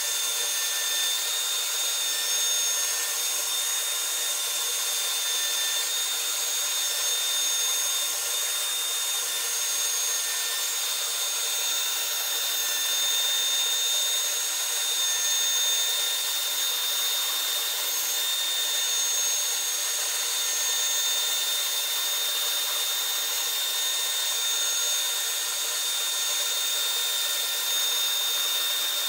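CNC router spindle running steadily as its bit mills the contoured face of a wooden 1911 pistol grip blank: a constant high whine over the hiss of the cut.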